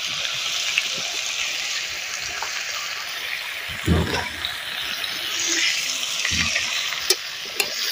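Cubes of wild elephant foot yam (ol) and potato frying in hot mustard oil in a kadai, a steady sizzle, with a dull knock about four seconds in and another about six seconds in.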